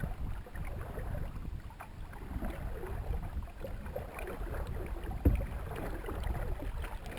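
Canoe being paddled: small water splashes and drips from the paddle strokes over a low rumble of wind on the microphone, with one sharp knock about five seconds in.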